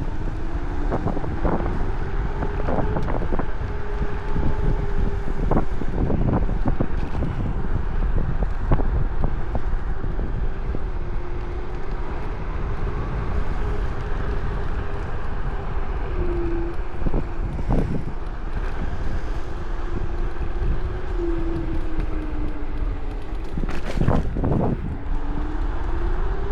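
Electric scooter's motor whining, its pitch rising and falling with speed, under heavy wind noise on the microphone. Occasional short knocks from bumps in the path.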